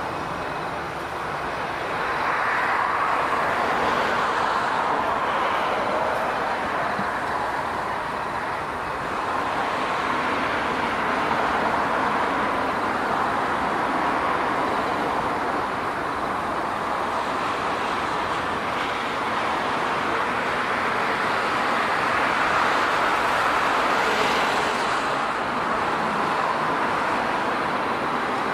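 Continuous engine noise, an even rushing sound that swells and eases slowly several times, strongest around the middle and about three-quarters through.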